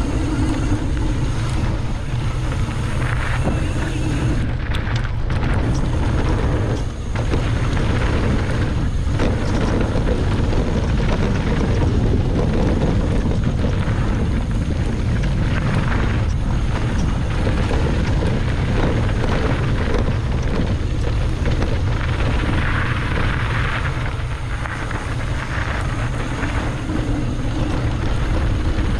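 Wind buffeting the camera microphone over the rumble and rattle of a mountain bike riding a rough trail, a loud steady noise with a brief dip about seven seconds in.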